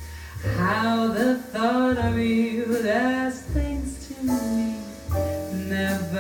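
Recorded music played back through a JBL Control CM 62 two-way loudspeaker: a sung melody over a steady bass line.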